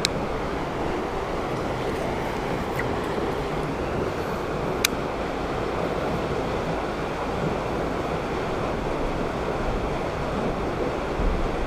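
A steady rushing noise with no rhythm or pitch, and a single sharp click about five seconds in.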